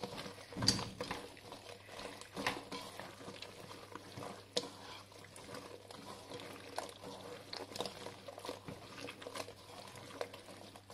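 Raw goat lung pieces being mixed with salt, turmeric and ginger-garlic paste in a pressure cooker: faint wet squelching with a few light knocks against the pot.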